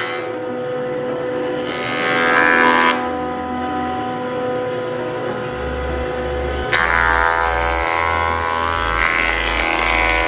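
Woodworking jointer running with a steady motor hum while a board is fed across the spinning cutterhead twice. A cutting pass about two seconds in lasts about a second, and a longer pass starts around seven seconds in.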